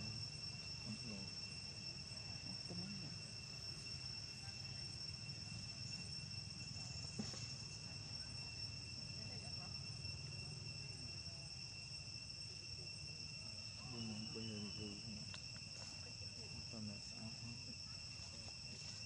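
Steady, high-pitched drone of insects, an unbroken whine that holds the same pitch throughout.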